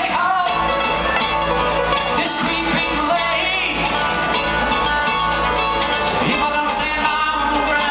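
Bluegrass string band playing live, upright bass and plucked strings with singing, heard from the audience in a large theatre.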